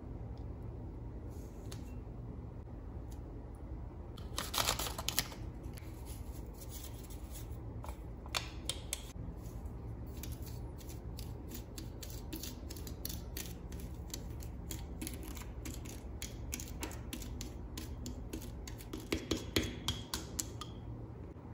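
A small plastic spoon clicking and scraping against a ceramic dish as candy powder is stirred with water into a dough. The ticks come thick and irregular from about eight seconds in, over a steady low hum.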